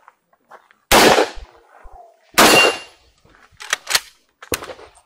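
Two gunshots about a second and a half apart, each with a brief ringing tail, followed by three fainter sharp cracks.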